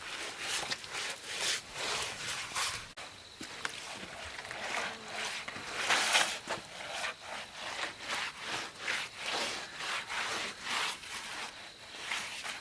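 Repeated scraping strokes, irregular, about one or two a second.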